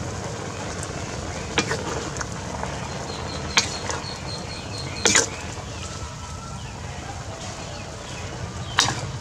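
Small shrimp and herbs cooking in a steaming wok: a steady low rumble with a few sharp clicks and knocks, the loudest near the end as a spatula starts stirring the shrimp against the wok.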